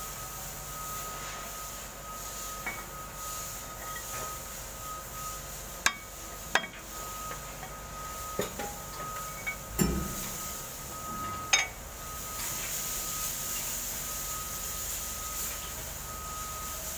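Sharp metallic knocks and clinks from hand work in a mining truck's engine compartment: four louder ones come between about six and twelve seconds in, over a steady background noise with a faint, continuous high tone.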